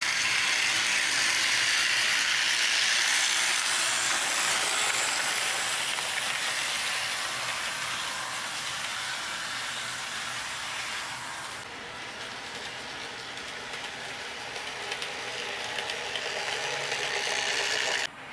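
Model train running on a layout, heard as a steady hissing rush with no clear tones. It thins out about two-thirds of the way through and cuts off abruptly near the end.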